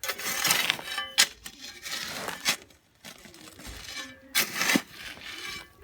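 Gritty scraping and metallic clinks as concrete aggregate is handled for a hand mix, in several bursts with a short pause about halfway through.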